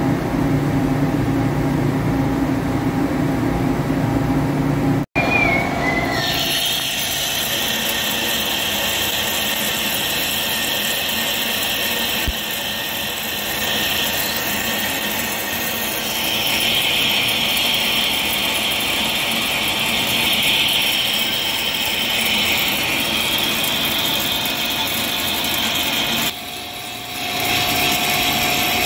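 Hankook CNC lathe taking a heavy roughing cut along a stainless steel roll with a CNMG insert and flood coolant: a loud, steady, high-pitched hiss of cutting. For the first few seconds a lower, steady machine hum is heard instead. Near the end the sound dips briefly and a steady tone joins in.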